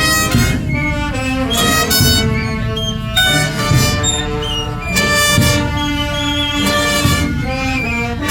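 Wind band of brass and woodwinds playing a Guatemalan Holy Week funeral march: slow, held chords that change every second or two over a low bass line.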